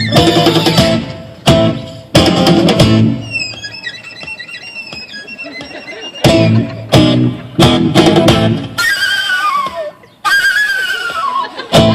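Fast live instrumental on violin and guitar: loud strummed guitar chords in sharp stop-start hits, alternating with quieter stretches where high warbling figures and downward slides are played, in a piece meant to imitate a bird.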